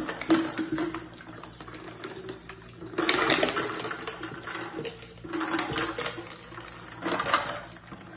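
Water and ice cubes poured from a plastic pitcher into a large glass dispenser jar, splashing and clinking, coming in a few surges as the pitcher is tipped.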